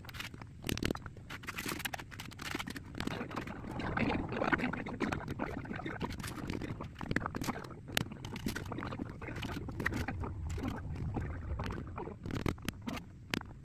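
Hand bricklaying on a patio border: irregular sharp knocks and clicks of bricks and hand tools, with scraping between them and a mallet tapping the bricks down.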